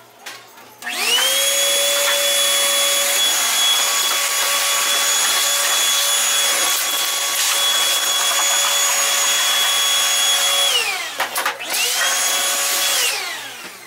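Shop vac motor switched on, whining up to speed and running steadily for about ten seconds, then winding down. It is switched on again briefly near the end and winds down once more.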